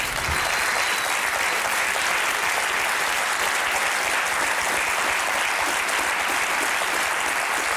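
Studio audience applauding, a steady even clapping throughout.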